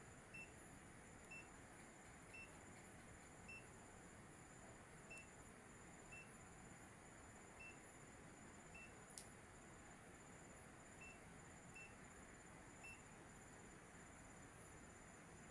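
Faint evening insect chorus: a steady high-pitched trill, with short beep-like chirps repeating roughly once a second, and a single sharp click about nine seconds in.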